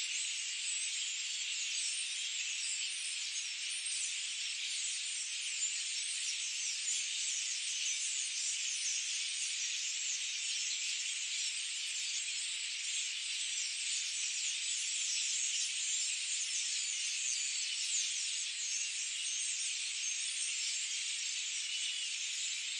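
Forest bird chorus: many birds chirping densely and continuously in a high-pitched, unbroken wash, with no low sounds under it.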